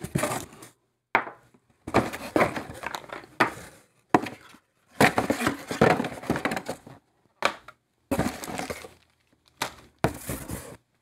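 Cardboard shipping box being opened and plastic-wrapped items lifted out and set down: irregular bursts of rustling and scraping with short pauses between, and a few sharp clicks.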